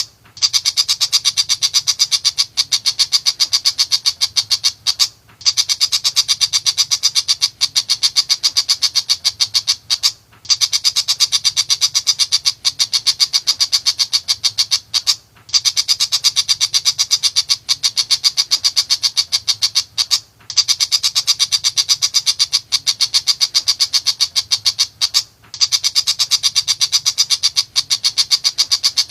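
Tiger shrike giving its rapid chattering call: a fast, even stream of short, sharp notes in runs of about five seconds, each broken by a brief pause.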